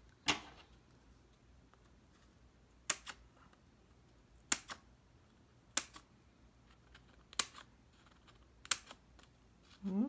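Small scissors snipping the punched ring holes of a paper planner insert open to the edge: about seven short, sharp snips, roughly one every second and a half, some doubled. The slits let the page slip on and off the rings without opening them.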